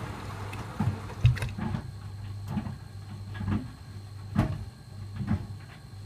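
Beko front-loading washing machine on a rinse: the drum turns with a steady low motor hum while the wet load and rinse water slosh and thud against the drum every half second to a second. A hiss of splashing water dies down about a second and a half in.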